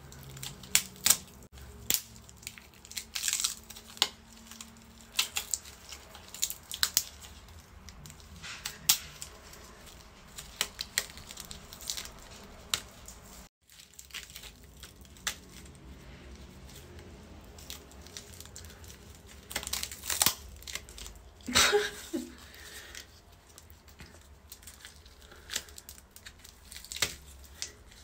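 A special-effects makeup prosthetic being peeled and torn away from skin and snipped with scissors: irregular sharp crackling and tearing.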